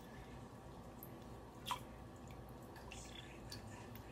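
Soaked sea moss dripping and dropping into a plastic blender jar as it is scooped in: faint wet drips, with one sharper tap about a second and a half in.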